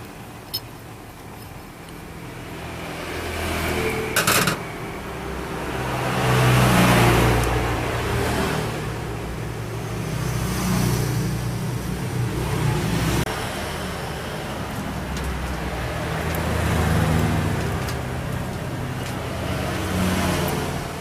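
Motor vehicles passing by, their engine hum swelling and fading several times, with a short sharp clatter about four seconds in.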